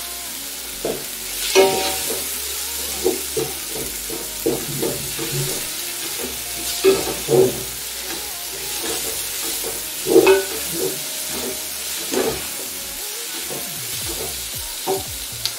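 Sliced red onions sizzling in a granite-coated pot, with a wooden spoon stirring and scraping through them and knocking irregularly against the pot.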